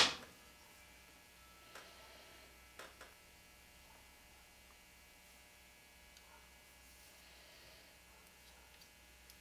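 Steady low electrical hum, with a sharp metallic snap dying away at the very start as a spring-loaded revolver lockwork part comes free under tension. Two faint clicks follow as the small coil spring and its part are handled by hand.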